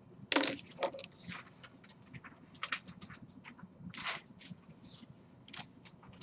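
A few short, scattered rustles and scuffs in a quiet room, the loudest about half a second in.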